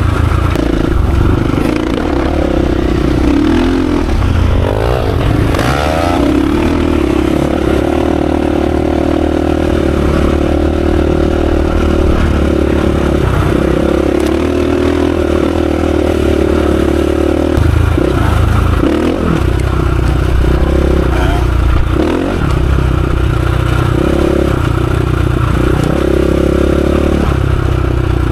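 Dirt bike engine running under way, revving up in rising sweeps a few seconds in, then holding a steady pitch with brief dips in the revs later on.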